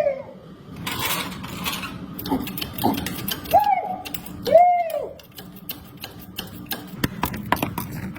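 Hand tool clicking, like a ratchet wrench being worked on the drain plug or filter housing, with quick runs of clicks near the end. Four short calls that rise and fall in pitch sound between about two and five seconds in.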